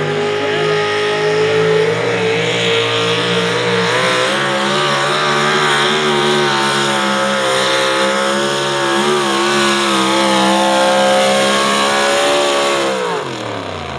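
Modified four-wheel-drive pulling truck's engine running flat out under load during a pull, holding a high pitch that wavers slightly. Near the end the pitch falls away sharply.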